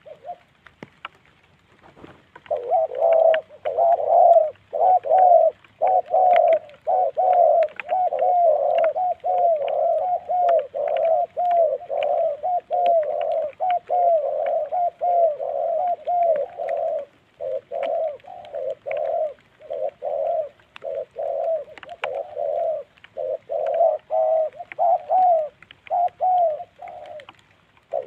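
Spotted doves cooing in a fast, unbroken run of short repeated notes, about two to three a second, starting about two seconds in. It is the excited territorial cooing of males facing off at a decoy trap.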